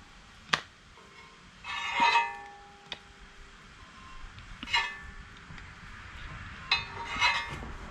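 Steel plates and parts clanking together as they are handled and fitted, a few irregular sharp clinks, each with a short metallic ring dying away.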